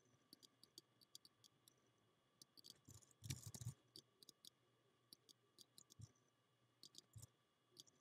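Faint, scattered clicks of a computer mouse and keyboard, with a denser flurry of clicks about three seconds in.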